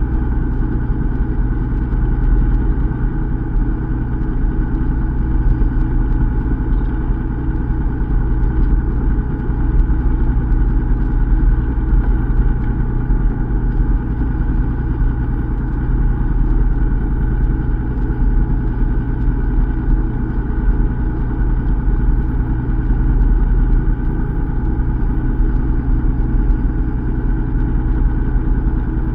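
Fishing boat's engine running steadily at low speed, a constant low hum with no change in pitch.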